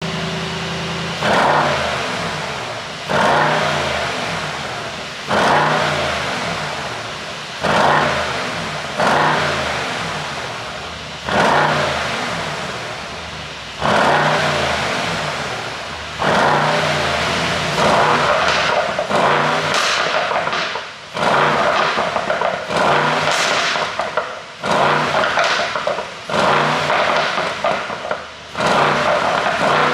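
Mercedes-AMG E63 4Matic+'s 4.0-litre twin-turbo V8 revved again and again, each rev jumping up quickly and dying away over a second or two. In the second half the revs come quicker and shorter, with crackles and pops as the revs drop, from a pop-and-bang exhaust tune.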